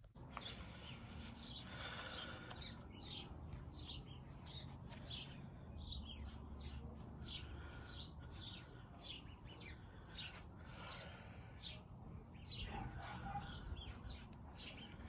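Small birds chirping repeatedly, many short quick notes falling in pitch, about two a second, over faint steady background noise.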